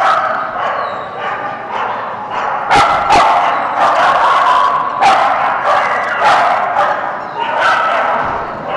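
A dog barking repeatedly, with short sharp barks coming again and again, the loudest pair about three seconds in.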